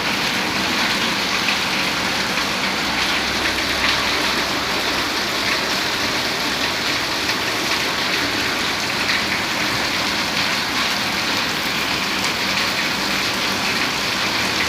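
Rain falling steadily in a dense, even hiss of many drops.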